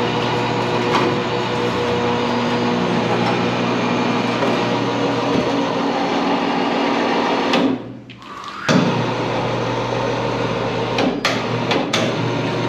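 Electric hoist motor running with a steady hum while lowering a large hog carcass. It cuts out just before eight seconds in, starts again about a second later with a click, and a few sharp clicks of chain and hook follow near the end.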